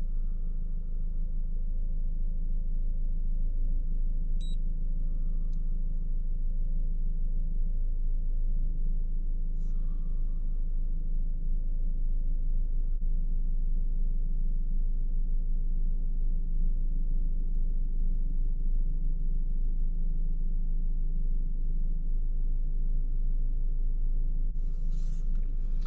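Car engine running steadily, a constant low rumble, with one short high beep about four and a half seconds in.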